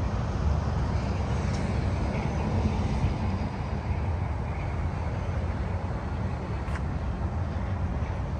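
Wind buffeting the phone's microphone outdoors: a steady, unsteady low rumble with a faint hiss of outdoor background noise.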